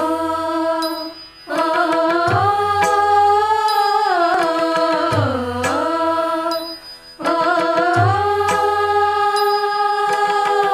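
Excerpts of Tamil film songs: a woman singing long, held, sliding melodic lines over instrumental accompaniment with a low drone and percussion. The music breaks off briefly twice, about a second and a half in and about seven seconds in, as it cuts from one song to the next.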